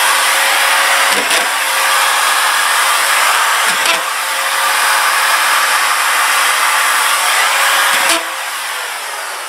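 Ridgid corded drywall screwdriver, a 4,000 RPM screw gun, running flat out with the trigger locked on: a steady high whine, broken by short catches about one, four and eight seconds in as screws are driven into drywall over a steel stud. After the last one, near the end, the sound drops and fades.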